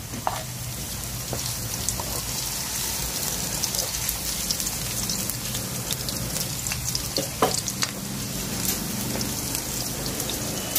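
Chopped garlic and red onion sizzling and crackling steadily in hot oil in a pan, with a few sharp knocks of the spatula against the pan.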